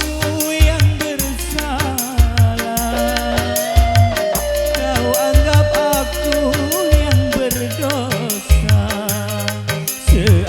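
Instrumental dangdut on an orgen tunggal keyboard setup: a bending, ornamented lead melody over a repeating bass line and a steady beat of low drum hits.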